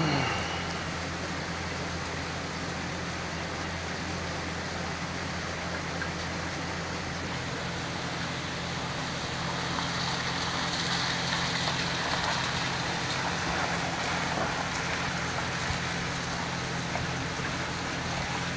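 Steady rain falling on puddles and flooded pavement, a continuous hiss that grows louder about halfway through, with a steady low hum underneath.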